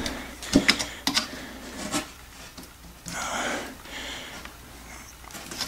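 Metal frame of a washable furnace filter being handled and pried at to flip up a retaining tab: a few light clicks, then a longer scraping rub about three seconds in.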